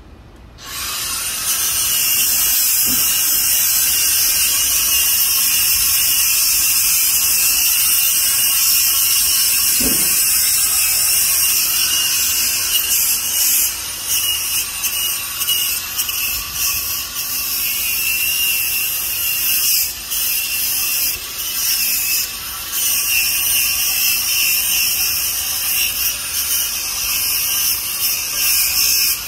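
Electric angle grinder with a flap disc switching on about a second in and running at speed with a steady high whine, then grinding on the metal front flange of an AC servo motor housing, its sound dipping and recovering unevenly from about halfway on as the disc bears on the metal.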